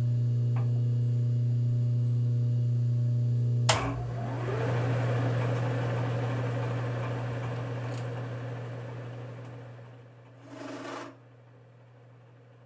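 Bridgeport vertical milling machine running with a 5/8-inch drill bit in steel: a steady motor hum until a sharp click about four seconds in, then a noisier whir that rises in pitch and slowly fades away, with a brief rasp near the end.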